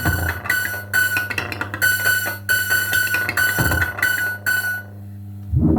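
Music: a run of repeated plucked or keyboard notes over a steady low tone. The notes stop about five seconds in and a low rumbling sound comes in near the end.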